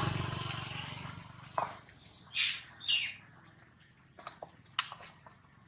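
Two short, high squeals from a baby macaque close together about halfway through, each falling in pitch, with scattered crackles of dry leaves under the monkeys' feet.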